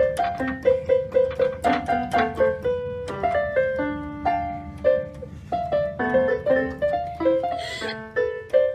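Portable electronic keyboard playing a quick melody in a piano voice, one note after another with a few short chords.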